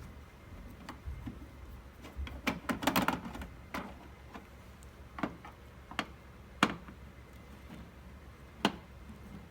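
Sharp clicks and taps of screws being worked out of a flat-screen TV's plastic back cover, with a quick rattling run of clicks about three seconds in, then single clicks spaced a second or two apart.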